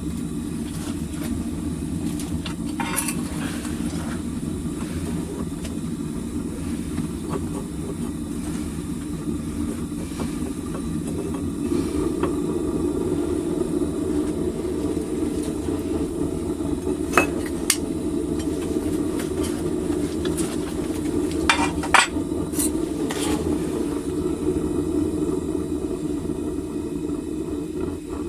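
Home-made propane furnace burner running with a steady, rumbling rush. A few sharp metallic clinks and knocks sound over it, one about three seconds in and a cluster in the second half.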